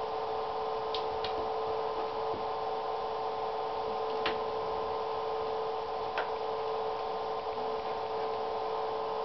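A steady hum runs throughout, with a handful of short, sharp taps as a cat paws and pounces on a toy mouse in an empty bathtub.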